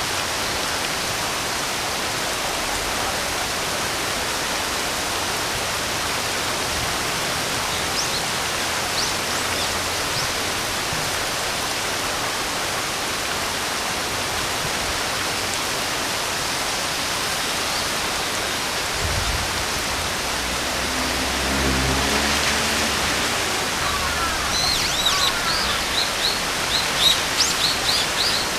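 Steady rain hiss with birds calling: a few short chirps at first, then birds chirping rapidly and repeatedly in the last few seconds.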